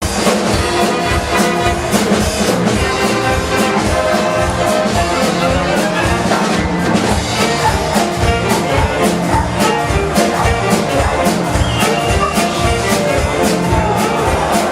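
Upbeat music with brass and a steady drum beat.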